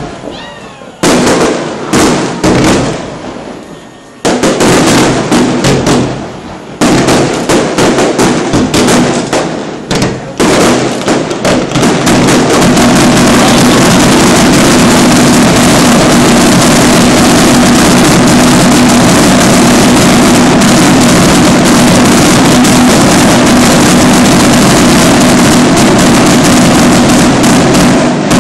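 Fireworks display: loud bangs of bursting aerial shells, several in quick succession. From about twelve seconds in, they merge into a continuous dense barrage of bangs and crackle, the finale, which dies away just before the end.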